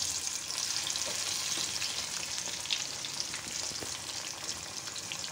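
Taro-leaf pakoras deep-frying in hot mustard oil in a kadhai: a steady sizzle thick with fine crackling.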